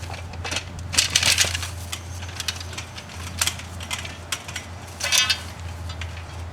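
Potting soil being dug through and shifted in a container: a string of irregular crunches and scrapes, loudest about a second in and again near five seconds.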